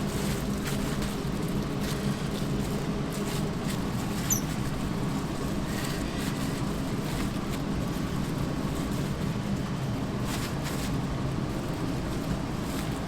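Steady low hum of kitchen background noise, with occasional light clicks and knocks and a brief high squeak about four seconds in.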